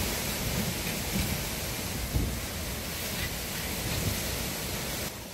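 Derecho windstorm: a steady, loud rush of driving rain and wind, with heavy gusts buffeting the microphone into a low rumble.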